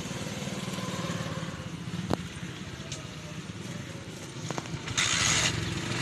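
A small engine running steadily with a fast, even pulse, with a couple of sharp clicks and a short, loud hiss about five seconds in.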